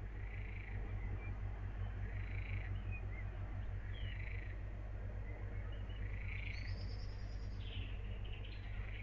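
Outdoor ambience: a short animal call repeats about every two seconds, and a bird chirps about seven seconds in, over a steady low hum.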